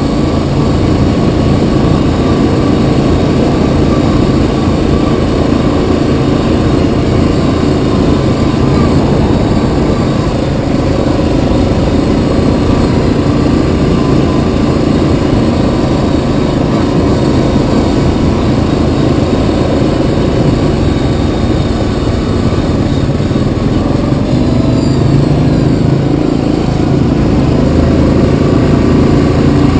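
Yamaha Kodiak 700 ATV's single-cylinder engine running steadily under way on a dirt trail, its pitch shifting about 25 seconds in.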